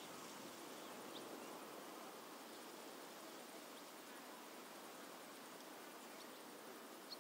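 Near silence: a faint steady hiss, with a couple of faint short high chirps, one about a second in and one near the end.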